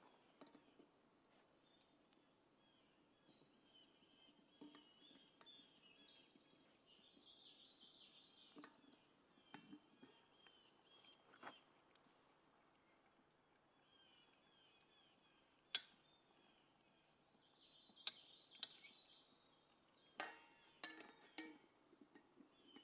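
Near-silent outdoor ambience with faint bird calls: bursts of chirping about a third of the way in and again later on. Several faint sharp clicks come in the second half.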